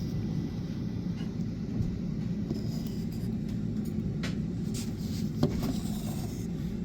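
A steady low rumble runs throughout, with a few light clicks and taps of small objects being handled; the sharpest tap comes about five and a half seconds in.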